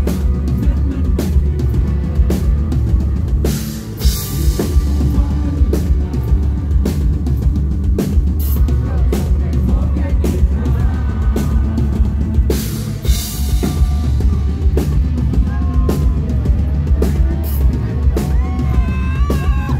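Live rock band playing loud through a PA: a drum kit pounding out a steady beat with heavy bass under it and electric guitars, with cymbal crashes about four and thirteen seconds in. A melodic line with bending notes comes in near the end.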